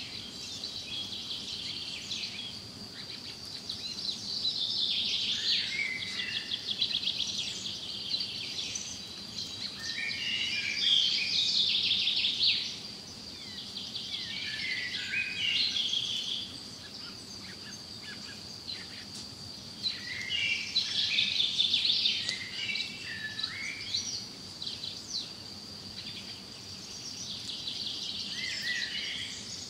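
Wild birds chirping in repeated bursts over a steady, high-pitched insect drone.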